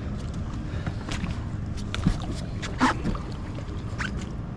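Steady wind and water noise around a small boat, broken by four short sharp sounds about a second apart.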